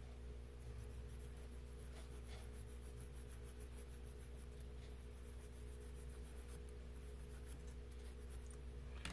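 Faint rapid scratching of a small tool on a phone's circuit board, heard over a steady low electrical hum. There is a sharp click near the end.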